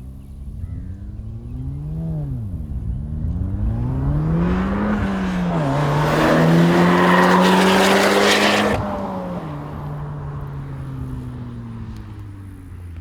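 Volkswagen Golf R's turbocharged four-cylinder through an AWE SwitchPath exhaust, accelerating with a short rev, then a gear change about five seconds in. The note is loudest as the car comes close, then drops in pitch and fades as it pulls away.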